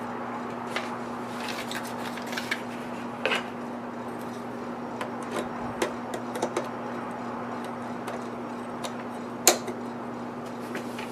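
Scattered light clicks and clinks of light bulbs being fitted into the sockets of a homemade aquarium light fixture, with one sharper knock about nine and a half seconds in, over a steady low hum.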